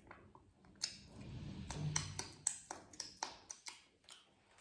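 A quick run of light clicks and smacks, about four a second for roughly three seconds, typical of lip and mouth smacks from chewing close to the microphone.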